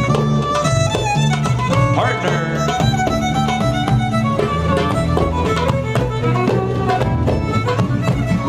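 Live contra dance music: two fiddles playing a dance tune together over a steady acoustic guitar rhythm.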